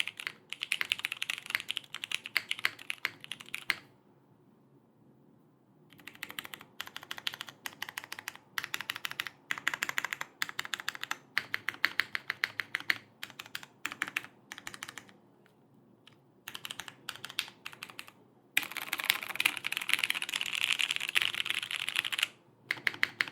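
Mechanical keyboard typing on a Dalco 959 Mini GT with lubed vintage Cherry MX Brown switches, a polycarbonate plate and GMK keycaps: runs of keystrokes broken by short pauses, ending in a dense fast flurry.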